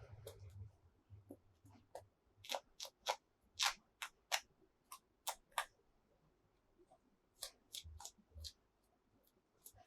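Small plastic toy pieces clicking and clacking together as they are handled: a run of sharp clicks, most of them between about two and six seconds in, with a few more around eight seconds.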